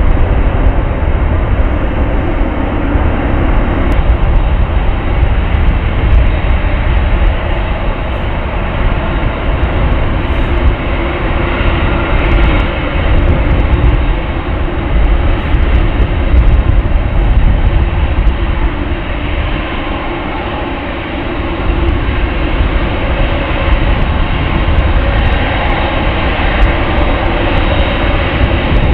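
Boeing 747's four turbofan engines running at taxi power as the jet rolls slowly forward: loud, steady jet noise with heavy low rumble.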